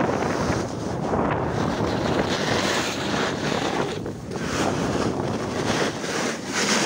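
Wind rushing and buffeting over the microphone of a camera carried by a skier going downhill, with repeated hissing surges from skis carving turns on packed snow.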